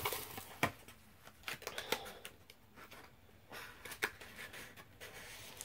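Scattered light clicks and crinkles from handling crumpled plastic shrink wrap and card packaging.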